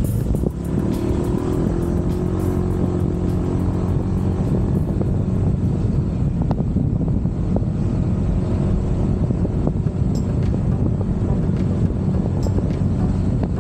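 Honda PCX125 scooter's single-cylinder engine running at a steady cruise. Its note rises a little in the first couple of seconds, then holds. Heavy wind rumble on the microphone runs underneath.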